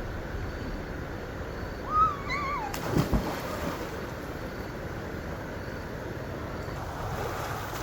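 Steady outdoor background noise, with a short wavering call about two seconds in, then a sharp click and a couple of low thuds.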